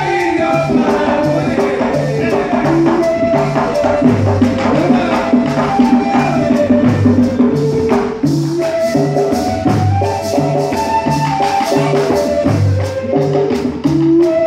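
Colombian gaita ensemble playing live: gaita flutes carrying a melody of held notes over a steady drum pulse and shaken maraca, with a heavier low drum beat every few seconds.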